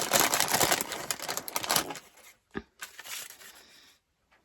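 Packaging crinkling and rustling as small sewing items are handled out of a box, dense for about two seconds, then a single sharp click and faint rustling.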